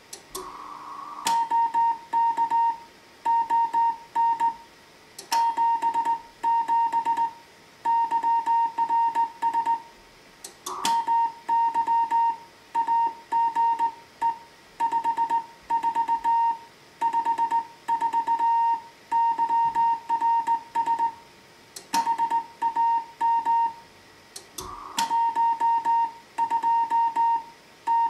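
Morse code from a Heathkit HW-101 transceiver: a steady tone of about 900 Hz keyed on and off in slow dots and dashes, with a sharp click every few seconds.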